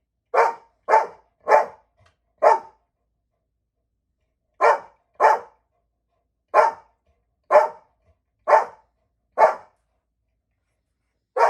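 A pet dog barking: about eleven short single barks, roughly a second apart, with a pause of about two seconds after the fourth.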